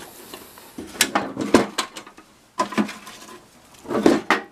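Loose tools and small metal parts clinking and clattering in a toolbox as it is rummaged through: a handful of separate knocks and rattles, some ringing briefly.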